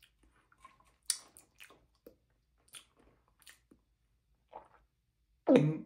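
Quiet mouth sounds of a person sipping and swallowing iced coffee: scattered small clicks and smacks, the sharpest about a second in. Near the end comes a brief hum of the voice.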